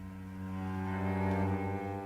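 Music with a low held note and its overtones, steady and swelling slightly about a second in.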